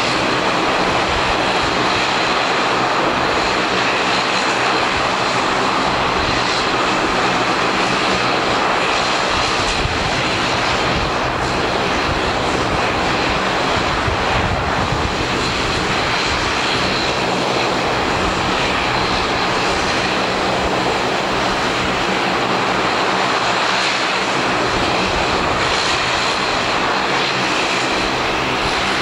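Bombardier DHC8-Q400's two Pratt & Whitney Canada PW150A turboprop engines running on the ground with the propellers turning: a steady drone with a low propeller hum and a faint high whine.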